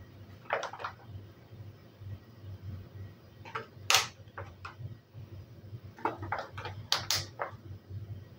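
Thin clear plastic food tray crackling and clicking as it is handled and shaken, in three clusters of clicks: one about half a second in, one around four seconds with a single sharp, loud snap, and a run of clicks between six and seven and a half seconds.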